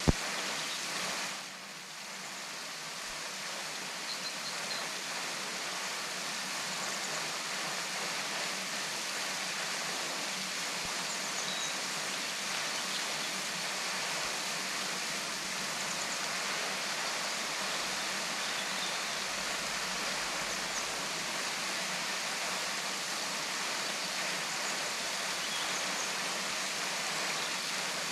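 Henrhyd Falls waterfall: water falling and rushing in a steady, even hiss. There is a sharp click at the very start and a short dip in level about a second and a half in.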